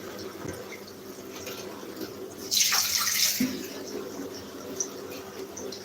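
Water running from a tap into a sink, with a louder rush of water for under a second about two and a half seconds in.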